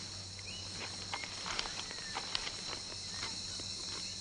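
Steady high chorus of rainforest insects, with scattered short clicks and crackles over it.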